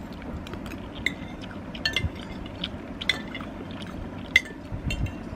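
Spoon clinking against a bowl while scooping soup, with the liquid sloshing. A series of light clinks, a few with a short ring.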